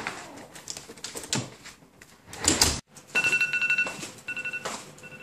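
A few soft knocks and thumps as someone in socks steps onto a doormat at a front door. Then, about three seconds in, a mobile phone gives an electronic alert tone, repeated as short beeps with brief gaps: the doormat's weight sensor has sent a text alert.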